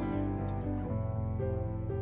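Instrumental background music, held notes that change every half second or so.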